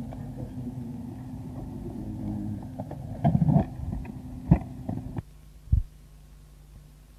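Old recording of indistinct background voices over a steady low hum, with a few knocks; about five seconds in the sound cuts off abruptly at an edit in the recording, leaving only a quieter hum.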